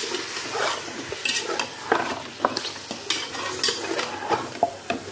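Large mutton pieces sizzling in hot oil in a pressure-cooker pot while being stirred and turned with a spatula. The spatula scrapes and knocks against the pot several times a second, irregularly, over a steady frying hiss.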